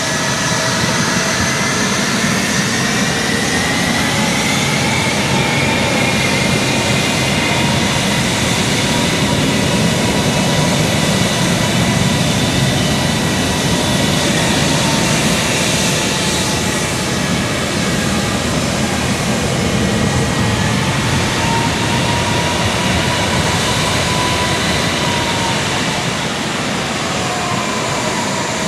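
Jet airliner's engines running: a loud, steady roar with whining tones that slowly drift up and down in pitch.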